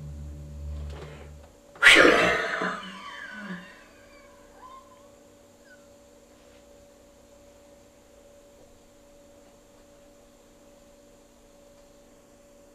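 A man's sudden loud, breathy vocal outburst about two seconds in, falling in pitch and fading over about a second and a half, made as he goes into a trance. After that only a faint, steady electrical hum.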